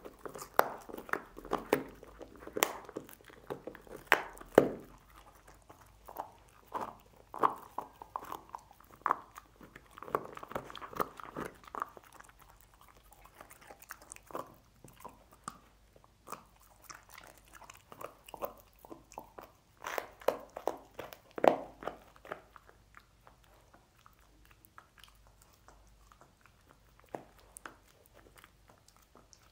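A dog chewing and crunching on cooked pork bones: irregular bites and crunches, thick in the first dozen seconds and again around twenty seconds in, with the loudest crunch there, then sparser toward the end.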